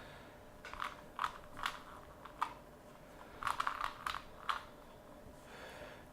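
Plastic Rubik's cube being turned by hand, its layers clicking and clacking in two short runs of quick turns.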